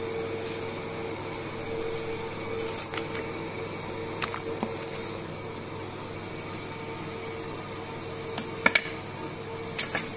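Hand tools and metal pieces clinking sharply as they are picked up and set down on a workbench, a few times, over a steady machine hum.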